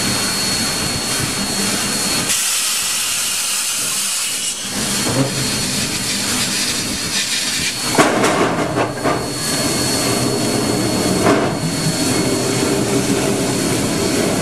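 Steam locomotive hissing steam as its driving wheels and side rods turn slowly. From about eight seconds in it grows louder and fuller, with scattered knocks.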